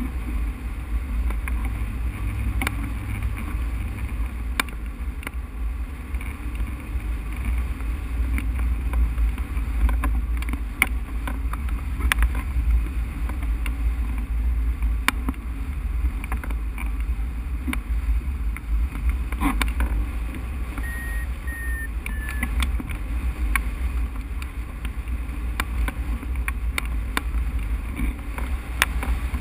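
Wind rushing over the microphone of a camera mounted on a hang glider in flight: a steady low rumble with scattered clicks and ticks, and a few brief high beeps about two-thirds of the way through.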